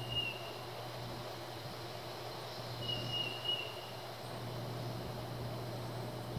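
Outdoor ambience by a pond: a steady low hum under an even hiss, with a high, thin call lasting about a second, heard once just at the start and again about three seconds in.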